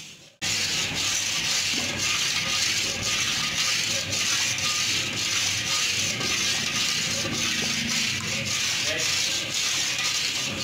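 Flat steel spatula scraping and rubbing over the bottom of a large steel karahi in repeated strokes, stirring semolina as it roasts in ghee.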